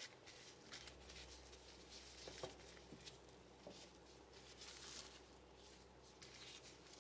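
Near silence with faint rustling of plastic cling film being handled and peeled off rolled-out dough, plus a few soft ticks. The clearest rustle comes just before the film is off, about five seconds in.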